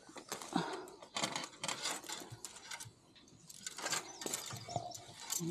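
A gate latch being fiddled with by hand: irregular clicks and rattles as someone tries to work out how to open it.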